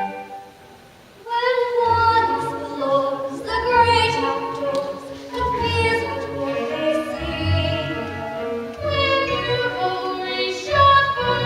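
Stage-musical song sung by several voices over instrumental accompaniment. After a short lull about a second in, the singing comes back in with long held notes.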